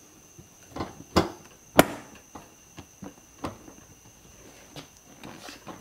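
Plastic front bumper cover of a Honda S2000 being pressed and knocked into place by hand as it is fitted around the headlight: a string of sharp knocks and clicks, the loudest about two seconds in.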